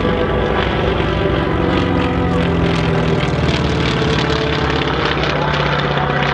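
North American T-28 Trojan's radial piston engine and propeller in flight, a loud, steady drone whose note sinks slightly in pitch about halfway through.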